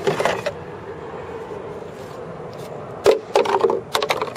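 Hand tool and hard plastic clicking and knocking as the screws holding the air cleaner box lid are undone: a quick cluster of clicks at the start, then a second, irregular run of knocks about three seconds in.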